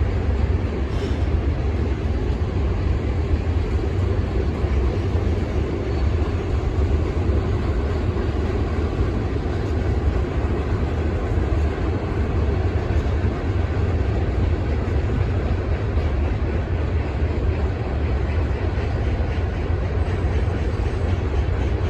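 CSX ballast train rolling past with a steady, unbroken rumble that is heaviest at the low end.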